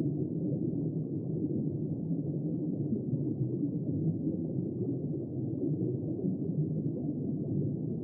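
Underwater ambience: a steady, muffled low rumble with no distinct calls or tones.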